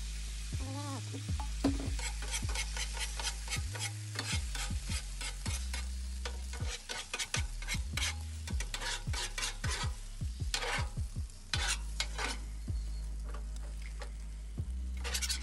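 Eggs and hashbrowns sizzling on a hot steel flat-top griddle while a metal spatula chops and scrapes across the griddle top in quick, repeated strokes. The strokes thin out and pause for a few seconds, then come back briefly near the end.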